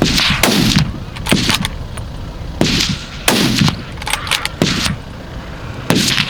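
A rapid series of gunshots during a wild boar hunt, about ten in six seconds, some in quick pairs, each with a trailing echo.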